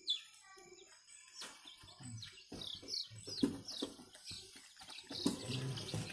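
Young chicks peeping: short, high chirps that fall in pitch, scattered at first, then a quick run of several in a row in the middle.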